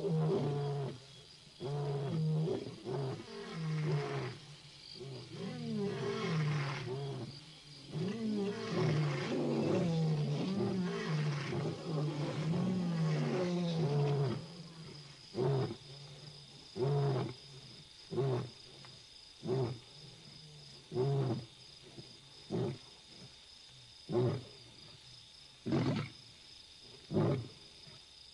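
Several male lions roaring in chorus at night, territorial roars: long overlapping moaning roars for about the first half, then a run of short grunts about one to one and a half seconds apart that end the roaring bout.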